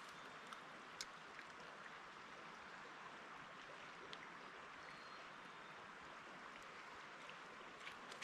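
Faint, steady rush of a rocky brook's flowing water, with a few small ticks.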